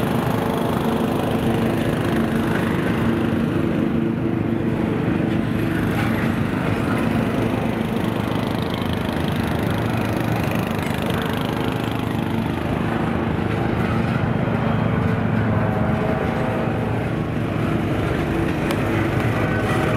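Diesel locomotive engine running steadily, a constant engine drone with no change in pitch.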